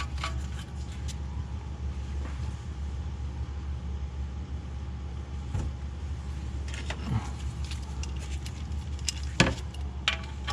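A few light metallic clicks and taps over a steady low hum while the oil drain plug is put back into the oil pan by hand.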